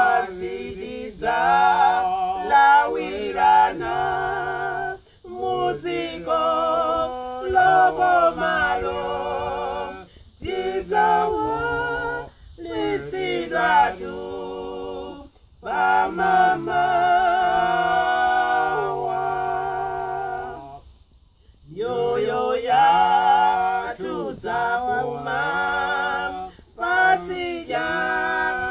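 A man and two women singing a hymn together in harmony, with no instruments, in phrases parted by short breaths; the held notes waver with vibrato, and there is a longer pause about 21 seconds in.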